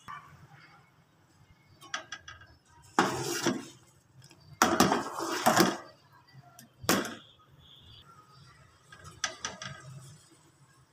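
Metal spoon stirring milk in a metal saucepan, scraping and knocking against the pan in a few short bursts, with lighter clinks between them.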